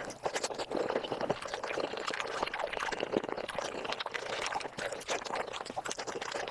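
Close-miked wet eating sounds of chicken feet in sauce being chewed and sucked, sped up: a dense run of sticky smacks and clicks.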